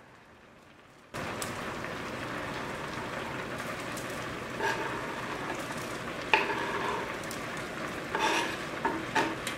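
Pot of chicken soup bubbling on the stove, a steady hiss that comes in about a second in, with scrapes and light knocks from a wooden cutting board against the pot as chunks of chicken are pushed into the soup; one sharper knock in the middle and a cluster of scrapes near the end.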